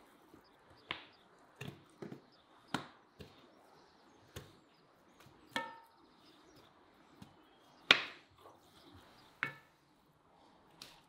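Knife chopping on a cutting board: about a dozen sharp, irregular chops, the loudest about eight seconds in. A few chops carry a brief metallic ring from the blade.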